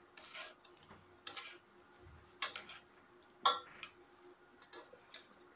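Steel ladle scraping and knocking against the side of an aluminium pot while stirring a thick yogurt gravy: several short strokes, the loudest about three and a half seconds in.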